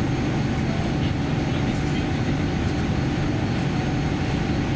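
Steady cabin noise inside a Boeing 787-10 airliner as it taxis: a continuous low rumble from the engines at taxi power and the rolling on the taxiway, with a faint thin high whine on top.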